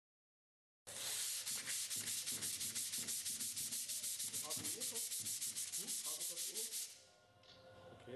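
Sandpaper rubbed by hand back and forth over a metal pipe in quick, even strokes, several a second, smoothing the pipe's surface so a clamp gasket will seat on it. Silent for about the first second; the rubbing pauses briefly near the end, then starts again.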